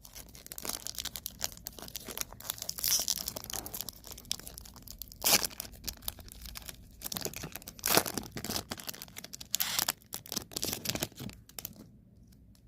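Foil wrapper of a Topps baseball card pack being torn open and crinkled: irregular crackling, with louder crackles about five and eight seconds in, dying away just before the end.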